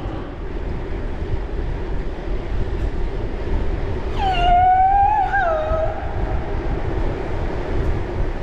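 Steady rumble of wind and rolling road noise while cycling, with a single drawn-out squealing tone about halfway through that wavers slightly in pitch and lasts under two seconds.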